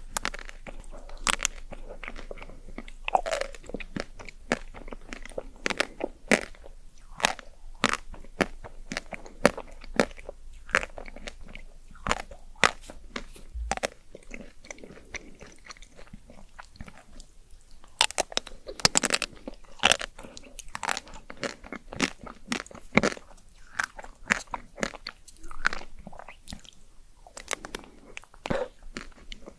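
Close-miked ASMR eating: a person biting and chewing crisp food with many sharp, irregular crunches, thickest in a run of bites about two thirds of the way through.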